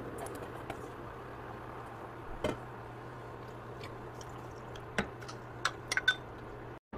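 Soybean sprouts and kimchi being dropped into a steel pot of hot water: soft wet rustling, with a few light clicks and taps about halfway through and again toward the end, over a steady low hum. The sound cuts out briefly just before the end.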